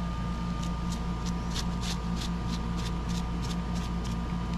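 Nutmeg being put on raw chicken pieces: quick, light, even strokes, about three a second, over a steady low hum.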